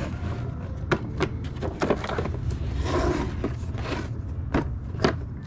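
Handling noise: a scattered series of sharp clicks and knocks, with a scraping stretch about three seconds in, over a steady low rumble.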